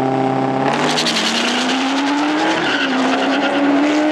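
A Dodge Challenger and a Corvette C7 launching off a drag-strip start line. The engines are held at steady revs, then a little under a second in they leave with a rush of tyre noise, and the engine notes climb and shift as the cars accelerate away.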